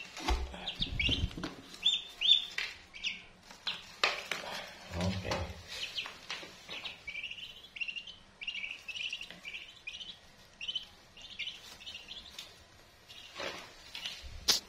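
Newly hatched ducklings peeping: a long run of short, high, downward-sliding peeps. In the first seconds there are bumps and rustling from a hand moving through the straw bedding, and there is a single sharp click near the end.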